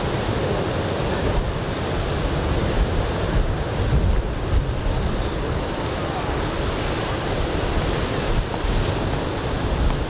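Ocean surf from a typhoon swell breaking and washing onto a beach, with wind rumbling on the microphone.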